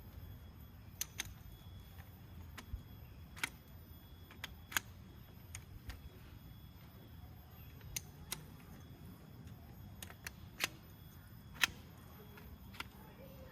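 Irregular sharp clicks and taps, about one a second, over a low steady rumble.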